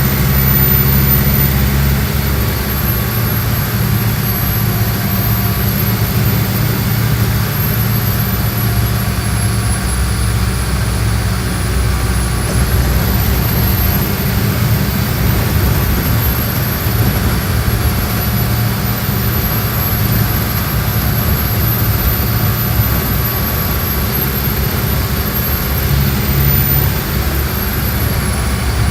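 Mercedes-Benz OF-1417 bus's six-cylinder turbodiesel engine running steadily, with a thin high whine that slowly rises and falls.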